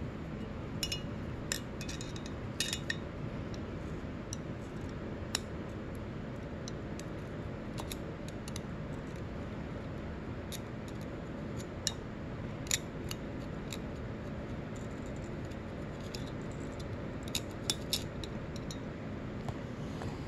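Light metal clicks and taps of needle-nose pliers and a pick against a valve spring retainer while fitting the valve keepers in a Honda CRF250R cylinder head. The clicks come irregularly, singly and in small clusters, over a steady low hum.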